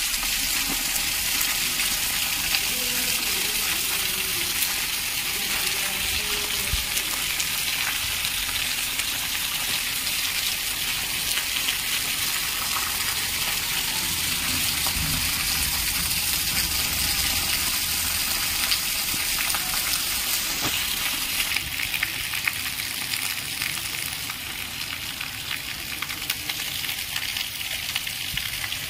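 Heavy rain pouring onto paved lanes and rooftops: a steady, even hiss, with runoff from a roof spout splashing on the ground. Now and then gusts of wind rumble on the microphone.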